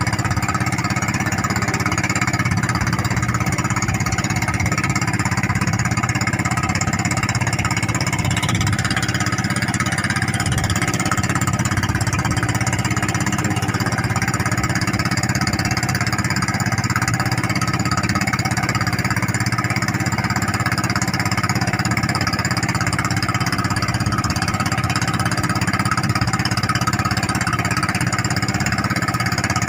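Small fishing boat's engine running steadily at constant speed.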